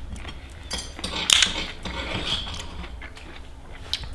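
A few light clinks and scrapes of cutlery against a plate or bowl, the loudest about a second and a half in.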